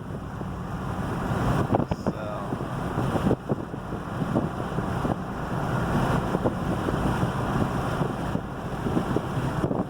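Wind rushing across the microphone, a steady noisy rush with a few faint knocks, as the vehicle moves along.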